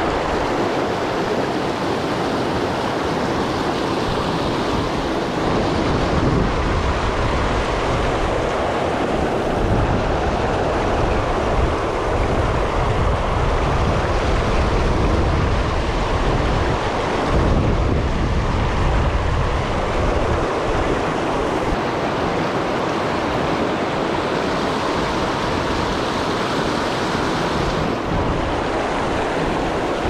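River rapids rushing over boulders: a steady wash of whitewater, with wind gusting on the microphone as an uneven low rumble.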